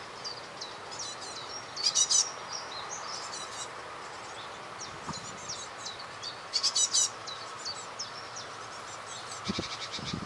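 Great tits and other small birds calling: many short high chirps, with two louder bursts of fast rattling notes about two seconds in and about seven seconds in. A few low thumps come near the end.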